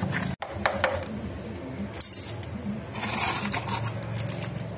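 A flat metal blade scraping dirt off the plastic lid of an old lead-acid inverter battery, heard as a few short clicks and two brief scrapes.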